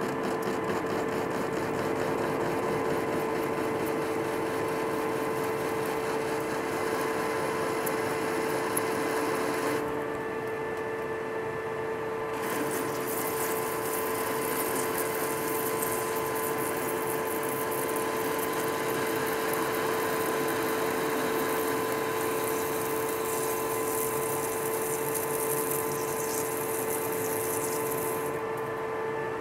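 Metal lathe turning down a weld on a hydraulic cylinder rod with a round button insert. A steady running tone from the lathe sits under the hiss of the cut and the flood coolant spray. The hiss drops away for a couple of seconds about ten seconds in, then resumes.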